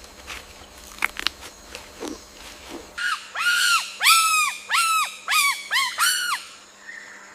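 A few faint clicks and snaps, then from about three seconds in a wild animal gives a run of about seven loud calls in quick succession, each rising and falling in pitch.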